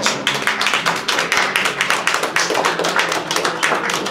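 A small audience applauding, many hands clapping in quick, irregular claps.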